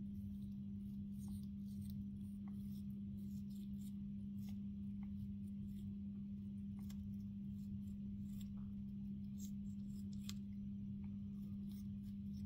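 African grey parrot biting and chewing apple with its beak: many small, irregular crisp crunching clicks. A steady low hum runs underneath throughout and is the loudest sound.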